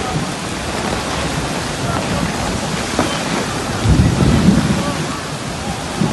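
Heavy rain pouring down in a steady downpour, with a deep rumble swelling briefly about four seconds in.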